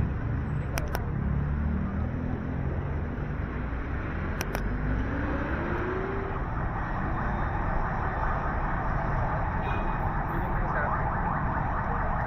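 Busy city street ambience: steady traffic noise, with a vehicle's engine rising in pitch as it speeds up about three to six seconds in. Two sharp clicks sound about a second in and about four and a half seconds in.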